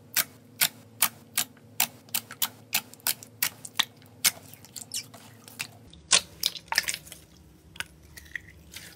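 Clear, speckled slime being pressed and kneaded by hand, giving sharp wet pops and clicks about two or three a second. About six seconds in, the clicks turn denser and irregular, into a crackle, as the slime is squeezed.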